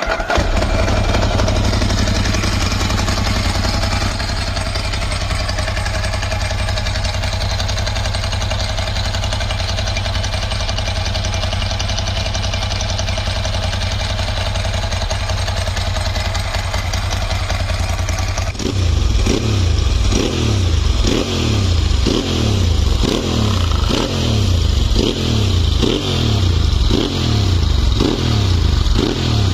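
Ducati Monster S2R 1000's air-cooled L-twin cold-started on its stock silencers, running at a steady idle. About two-thirds of the way through the sound switches to a series of quick throttle blips, each rev rising and falling a little more than once a second.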